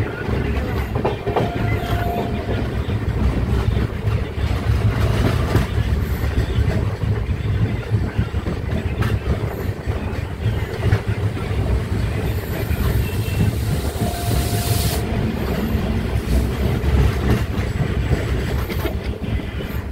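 Express passenger train running at speed, heard from the doorway of a coach: a steady rumble of wheels on the rails with clickety-clack over the rail joints. A brief rush of hiss comes about fourteen seconds in.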